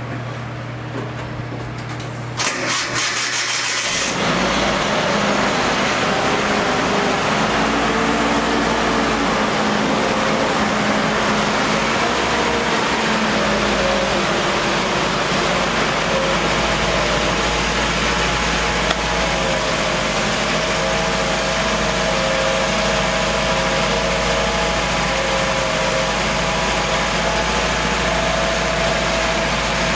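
The 1988 Nissan D21's Z24 four-cylinder engine cranks on the starter, powered by a jump box, for about a second and a half, catches about four seconds in, and then idles steadily. This is the first start after an alternator replacement.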